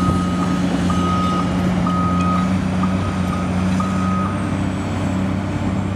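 Demolition excavator's diesel engine running steadily while a backup alarm beeps, one half-second beep about every second, five times, stopping about four and a half seconds in.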